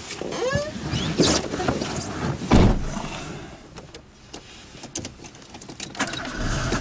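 A person getting into a small hatchback's driver's seat, with clothing and seat rustling, then a car door shutting with a thud about two and a half seconds in. After it come a few faint clicks of hands fiddling under the steering column.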